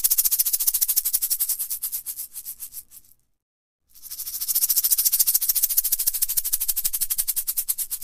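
A snake rattling its tail: a rapid, high rattling buzz that stops about three seconds in and starts again about a second later.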